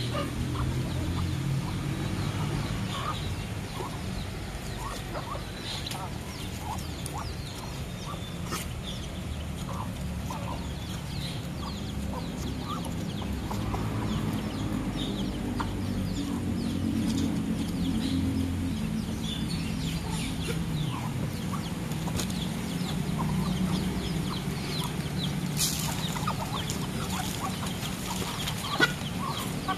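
Muscovy ducks and a chicken feeding on gravel: soft clucking and many quick pecking clicks, over a steady low rumble, with one sharper knock near the end.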